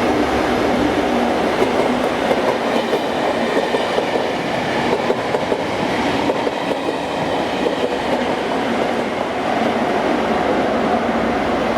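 HST (InterCity 125) test train running through on the rails: a steady, loud noise of wheels and running gear that does not let up throughout.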